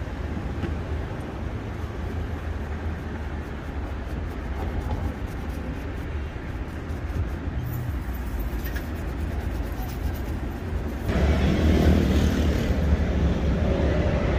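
Steady low background rumble with an even haze of noise, growing louder about eleven seconds in.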